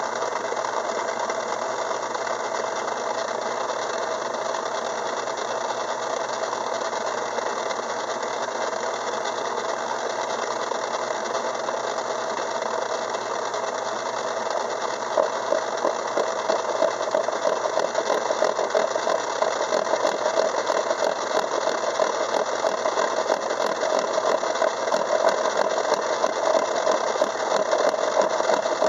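Craftsman 6-inch metal lathe running steadily, driving a 24-pitch 14.5° gear cutter. From about halfway a rapid, regular ticking comes in and grows as the cutter takes its pass between the teeth of a steel gear blank.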